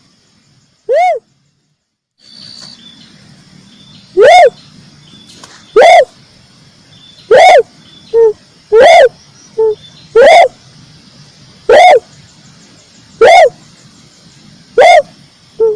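Red collared dove calling: short arched coos repeated about every one and a half seconds, with shorter, lower notes between some of them. The sound drops to dead silence for about a second early on, like a splice in a looped recording, over a faint steady high hum.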